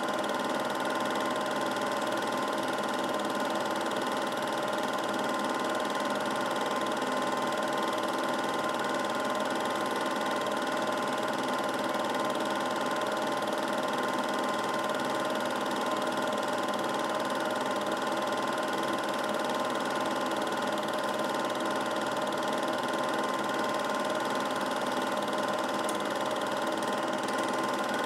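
Steady mechanical whirr and hum of a film projector running during a home-movie transfer, unchanging, with several fixed tones.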